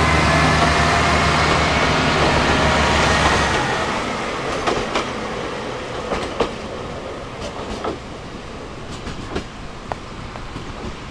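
Nagaragawa Railway 'Nagara' diesel railcar train passing close with its diesel engine running loudly. About three and a half seconds in the engine sound drops away as the train pulls off. What remains is quieter running noise, with scattered clacks of the wheels over the rail joints.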